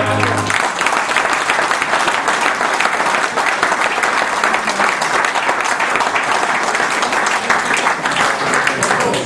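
Audience applauding a male voice choir, a dense steady clapping; the choir's last sung chord cuts off about half a second in.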